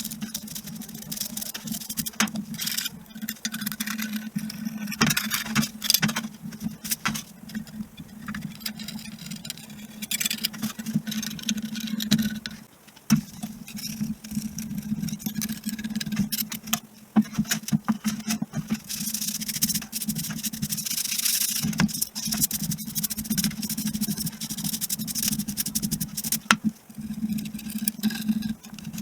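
Hand cleaning of small metal driveshaft parts: irregular scrubbing and scraping with frequent sharp clicks and clinks of metal. A steady low hum runs underneath.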